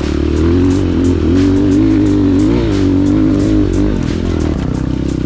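Pit bike engine running under throttle, its pitch rising and falling for the first four seconds, then settling steadier.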